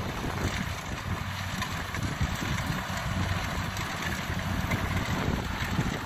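A Kubota DC70 rice combine harvester's diesel engine runs steadily while the machine cuts and threshes lodged rice, with wind buffeting the microphone.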